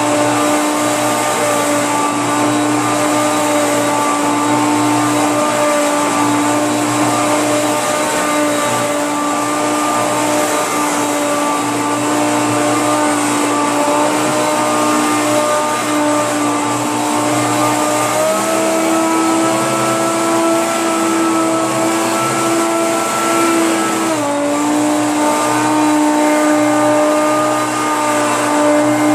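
Hoover PowerMax Supreme upright vacuum cleaner running with a loud, steady motor whine. About eighteen seconds in, its pitch steps up for about six seconds and then drops back. This fits its power surge switching the motor to high speed and back to low automatically.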